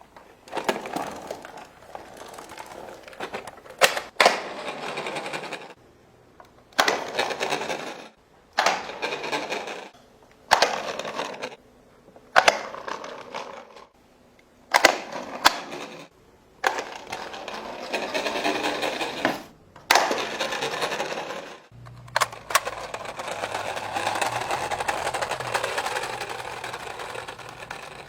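Plastic Toy Story RC toy car with a Woody figure repeatedly launched from its plastic launcher, its hard wheels rolling and rattling in about a dozen short runs. Each run starts with a sharp snap. A longer run near the end has a low hum under it.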